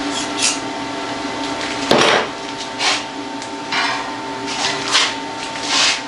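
Steady hum of running shop equipment, with a loud metal clank about two seconds in and several shorter metallic knocks and scrapes, as a freshly plasma-cut steel sprocket is worked loose.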